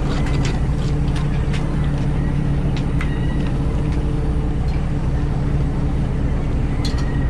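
Fishing boat engine running steadily with a low hum, and a few sharp knocks and clanks on deck.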